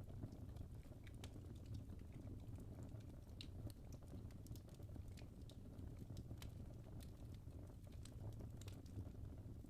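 Logs burning in a fireplace: irregular sharp crackles and pops over a faint, steady low rumble of the fire.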